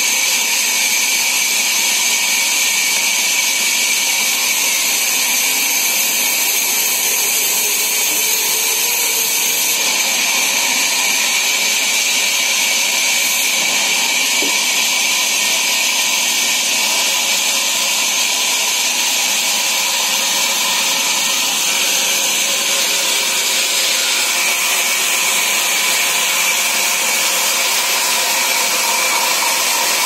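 Sawmill band saw running with a steady, high-pitched whine.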